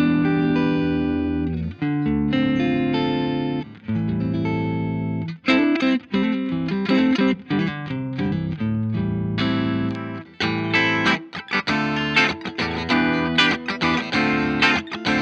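Electric guitar played through the Boss IR-2 pedal's Fender Twin amp model, all controls at their midpoint. It opens with several held, ringing chords, then switches to quicker picked single notes and short chords about five seconds in.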